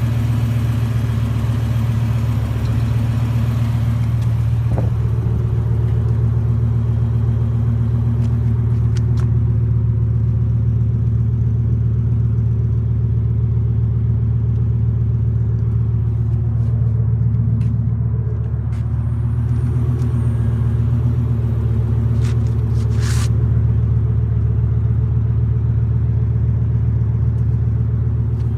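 BMW M6's 5.0-litre V10 engine idling steadily, a deep even hum with no revving.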